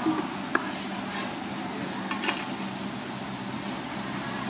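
Food sizzling steadily in a pan, with a few sharp clicks of a utensil against cookware.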